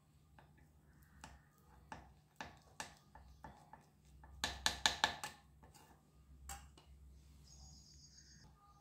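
A knife cutting down through a slab of damp multani mitti (Fuller's earth) clay, the blade clicking and tapping against the plate underneath in a quick run of sharp taps, thickest around the middle.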